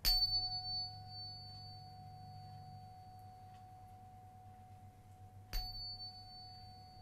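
A 741 Hz solfeggio tuning fork struck twice, about five and a half seconds apart. Each strike is a sharp tap followed by a long, slowly fading pure ringing tone with a faint high overtone.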